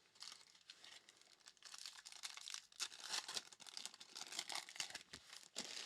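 Plastic or foil trading card pack wrapper being torn open and crinkled, a run of crackling and rustling for several seconds.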